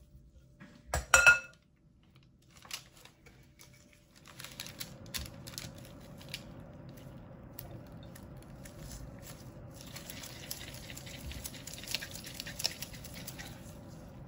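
A short ringing clink about a second in. From about four seconds, a steady soft rustling and crackling as latex-gloved hands roll the crumbly Oreo and cream cheese mixture into balls over parchment paper.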